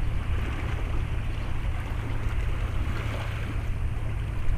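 Steady outdoor noise at a river's edge: a constant low rumble with a hiss over it, wind on the microphone mixed with the river.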